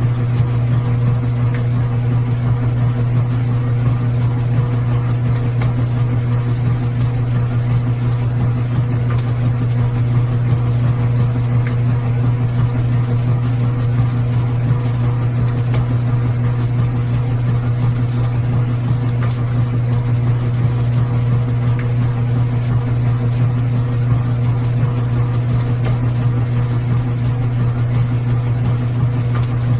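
Washing machine running steadily: a constant low motor hum with a light hiss and a few faint clicks over it.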